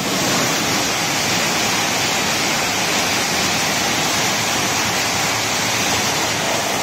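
A coupled E5 and E6 series Shinkansen bullet train passes through the station platform at high speed. It makes a loud, steady rush of air and wheel noise.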